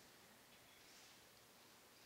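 Near silence: faint room tone during a pause in prayer.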